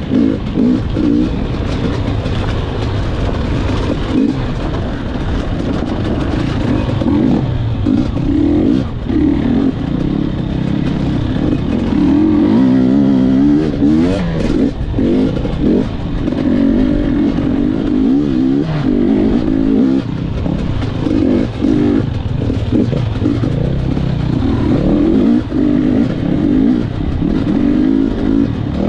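Gas Gas EC 250 two-stroke enduro bike's engine being ridden hard over rough dirt, its pitch rising and falling again and again as the throttle is opened and shut, with short drops in loudness between pulls.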